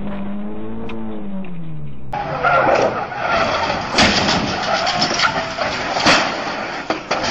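Pickup truck tyres skidding and squealing as it slides sideways in a cloud of tyre smoke, with engine noise and two sharp knocks, about four and six seconds in. Before this, for about two seconds, a low droning tone rises and then falls away.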